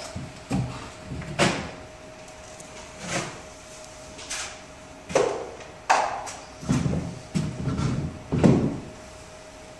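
Steel taping knife scraping joint compound off a mud pan and swiping it along drywall joints: about ten short scrapes, coming closer together in the second half. A faint steady hum runs beneath them.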